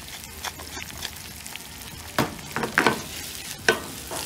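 Red onion and boiled ají amarillo frying in oil in a nonstick pan on a gas burner, with a steady light sizzle. A few sharp knocks come between about two and three and a half seconds in as the pan is lifted and tossed.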